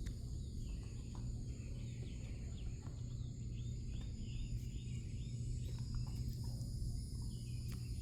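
Crickets chirping steadily over a steady low hum, with a few short chirps and faint clicks in the middle.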